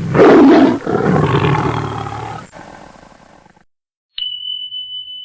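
A loud roar, strongest in its first second, fading away over about three seconds. After a brief silence comes a steady high-pitched beep lasting over a second.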